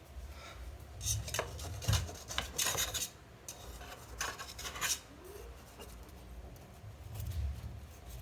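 A kitchen utensil scraping and rubbing against a dish in irregular strokes, loudest in a few clusters.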